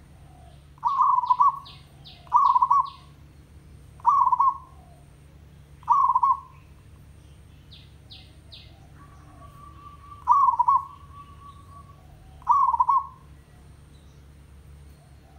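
Zebra dove (merbok) cooing: six short trilled coos, roughly one every two seconds, with a longer pause in the middle. Faint high chirps from another bird come early on and about eight seconds in.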